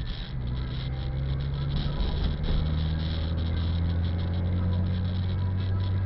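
Car engine running with a steady low hum while driving, heard from inside the cabin, with tyre hiss from the wet road.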